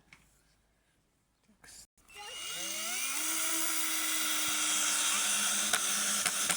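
Power screwdriver driving a long self-tapping screw through a wooden board: about two seconds in the motor spins up with a rising whine, then runs steadily for about four seconds, with a few clicks near the end.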